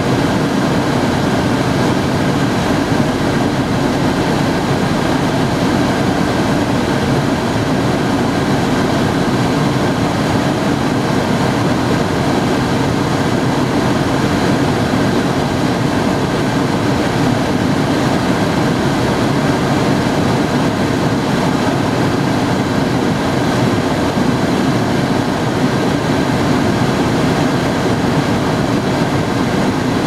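GM Astra's air-conditioning blower fan running, a steady loud rush of air out of the dashboard vent, with the A/C switched on and the vent air cooling.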